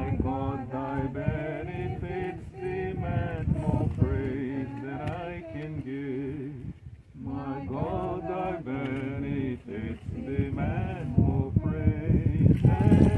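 A man's voice singing in a chanting style, with a short break about seven seconds in.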